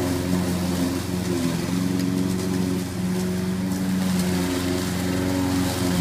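Gas lawn mower engine on a homemade remote-controlled robotic mower, running steadily.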